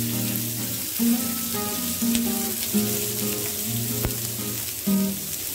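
Chopped onions sizzling as they fry in hot oil in an aluminium kadai, under instrumental background music with a sharp tap about four seconds in.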